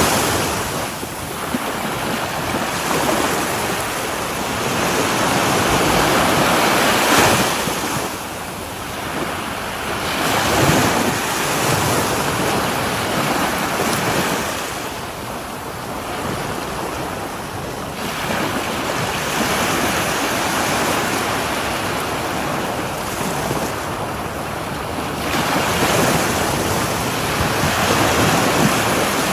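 Ocean waves breaking and washing up on a shore, the surf swelling and ebbing every few seconds, with wind buffeting the microphone.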